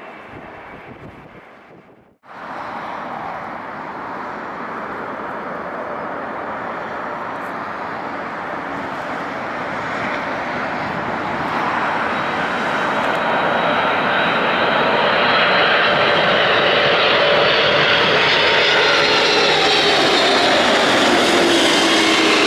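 Boeing 747-400 on final approach, its four jet engines growing louder as it comes closer. A falling whine appears near the end as it passes. The sound starts after a brief break about two seconds in.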